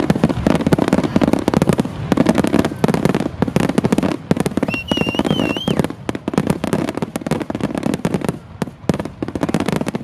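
Fireworks finale barrage: many overlapping shell bursts banging and crackling several times a second with no break. A brief wavering whistle sounds about five seconds in.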